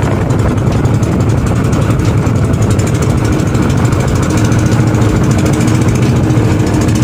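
Small engine of a motorized outrigger boat (bangka) running steadily under way, with water splashing along the bamboo outrigger.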